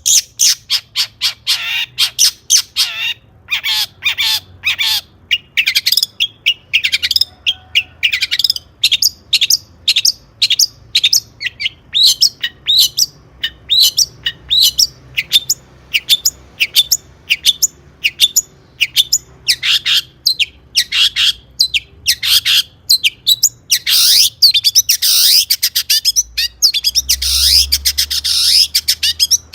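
Long-tailed shrike (cendet) singing a loud, rapid-fire song of short sharp notes, several a second, mixed with harsh squawky calls; the notes come thicker and harsher near the end.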